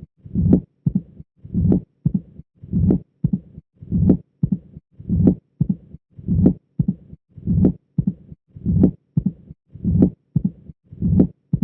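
Heart sounds of mitral stenosis heard through a stethoscope, in the classic Duroziez rhythm, repeating at roughly fifty beats a minute. Each beat has a loud first heart sound, then the second sound followed closely by an opening snap. A low diastolic rumble follows and grows louder just before the next first sound.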